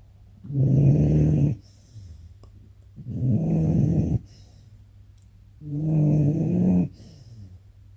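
A sleeping puppy snoring: three low, pitched snores about a second long each, coming roughly every two and a half seconds, with quiet gaps between.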